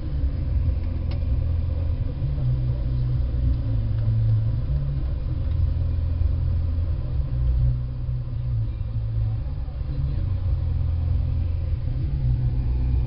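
Steady low rumble of a double-decker tour bus's engine, heard from inside the bus cabin.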